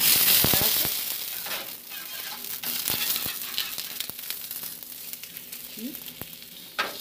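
A corn tortilla dipped in chicken broth and oil sizzling on a hot comal griddle. The sizzle is loudest as the tortilla goes down at the start, then settles to a steady frying hiss, with a metal spatula clicking and scraping on the griddle.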